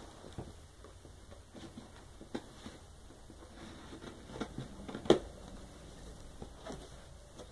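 Cardboard box being handled during unpacking: scattered rustles and light knocks of cardboard flaps, with one sharper knock about five seconds in.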